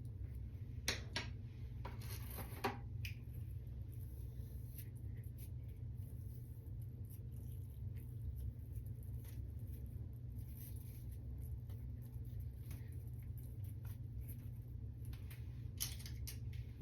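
Hair being handled and wound onto Velcro rollers: soft scratchy rustles and small clicks, the sharpest about a second in, around two to three seconds in, and near the end, over a steady low hum.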